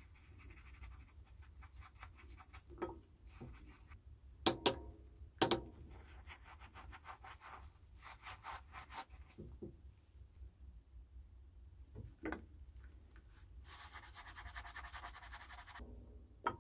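Scouring sponge scrubbing the rusty metal hose-nozzle tube of a vintage Rain King sprinkler in soapy water: quick scratchy rubbing strokes and wet suds. Two sharp knocks about four and a half and five and a half seconds in are the loudest sounds.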